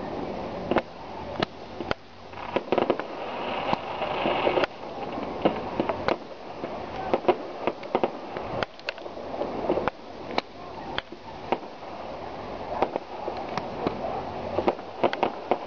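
Fireworks display about 300 metres away: an irregular run of sharp bangs and pops, sometimes several in quick succession, over a continuous background rumble and crackle.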